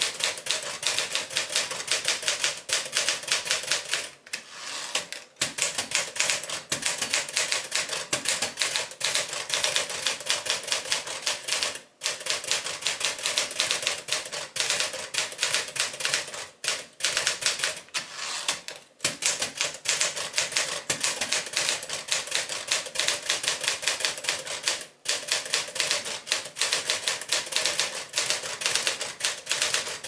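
1965 Smith-Corona Sterling manual portable typewriter being typed on steadily: rapid clacking of keystrokes, several a second, with a few brief pauses.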